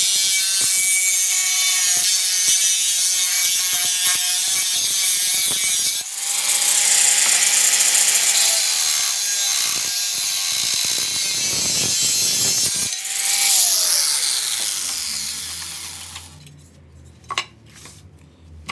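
Angle grinder with a cut-off disc cutting through a metal sliding-door guide rail: a loud, high grinding screech over the motor's whine. The motor dips briefly twice, then winds down with a falling whine and stops about 15 seconds in, followed by a couple of light knocks as the cut rail is handled.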